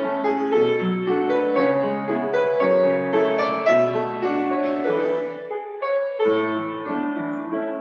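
Upright piano playing a hymn prelude in full chords, with a short break between phrases about six seconds in.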